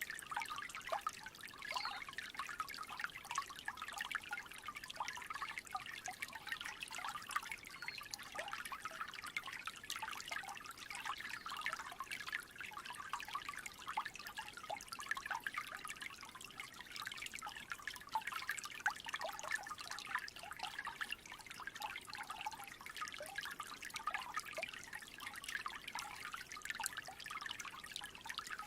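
Small creek trickling steadily, a dense patter of little splashes of running water.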